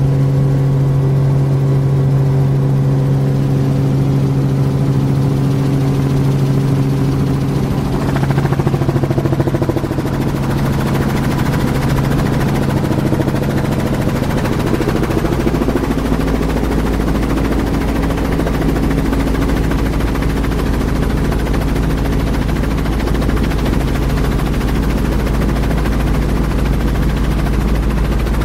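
Helicopter in flight heard from inside the cabin: a steady engine and rotor drone. About eight seconds in the tone shifts and turns noisier, and from about sixteen seconds a deep low rumble joins it.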